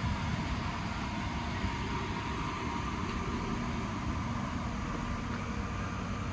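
Car engine running steadily at low speed: an even low rumble with a faint constant hum.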